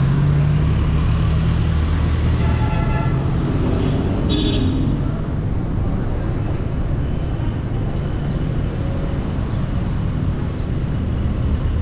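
Street traffic: a jeepney's engine running loud and close as it pulls past, easing off after about two seconds into steady road traffic noise. A brief horn toot sounds about four seconds in.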